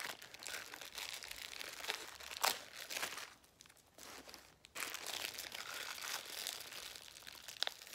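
Small clear plastic bag crinkling and crackling as it is pulled and bitten at to get it open, with a quieter stretch midway through.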